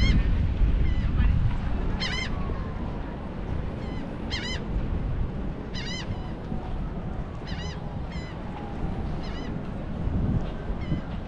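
Gulls calling: short, sharp cries repeated every second or two, over a steady low rush of wind and surf.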